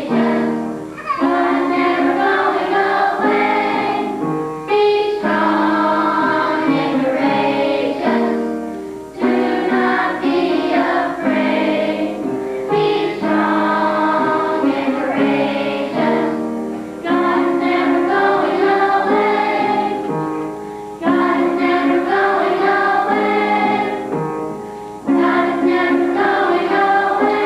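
A group of children singing a song together in unison, in phrases about four seconds long with a short breath between them.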